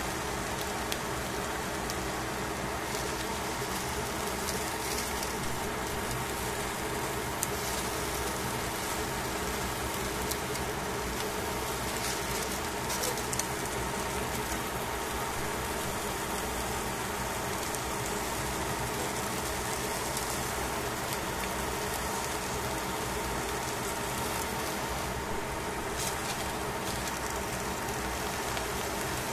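Fish fillets sizzling on aluminium foil in a hot frying pan: a steady crackling hiss with small pops, over a constant low hum.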